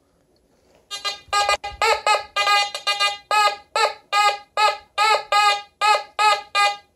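Nokta Fors Core metal detector sounding its target tone over and over as a Morgan silver dollar is swept past the coil: a run of short pitched beeps, about two or three a second, starting about a second in. The tone signals a high-conductivity silver target reading a solid 96 on the target ID.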